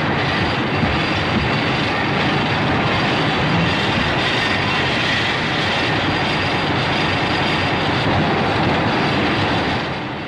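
Godzilla's atomic breath movie sound effect: one long, steady, dense rushing blast that eases slightly near the end.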